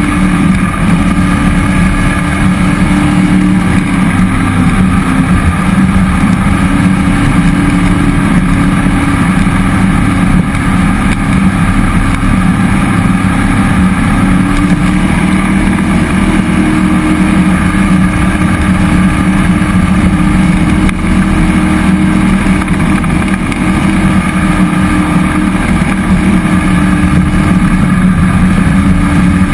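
Jet boat's cammed 5.3-litre LS V8 running steadily under way, its engine note holding an even pitch with only small wavers.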